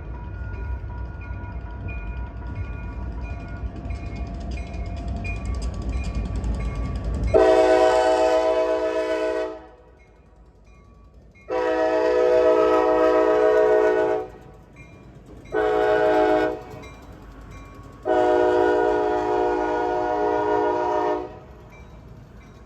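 Kansas City Southern diesel locomotive's air horn sounding a chord in four blasts, long, long, short, long: the standard grade-crossing signal. A low rumble from the approaching train builds before the horn starts, about seven seconds in.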